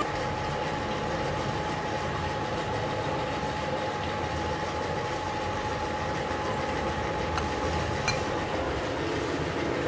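Electric fan running: a steady whirring hum with a faint steady high tone, and two faint clicks near the end.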